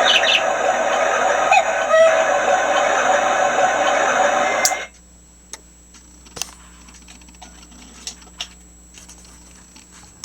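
Nature-sounds recording from a lighted motion waterfall mirror's built-in sound unit: bird calls over a steady rushing hiss, cut off abruptly a little under five seconds in. After that, only a few faint clicks and knocks.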